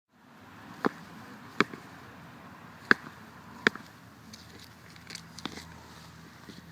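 Shells of a mating pair of turtles knocking together: four sharp clacks in the first four seconds, then a few fainter ones.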